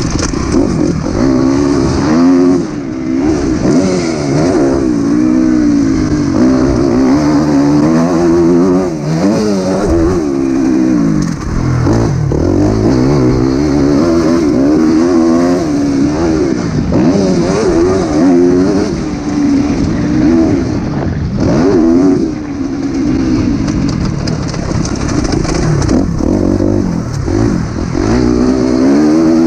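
2019 Suzuki RM-Z250 single-cylinder four-stroke motocross bike under way on a dirt track, its engine revving up and down again and again as the rider opens and rolls off the throttle.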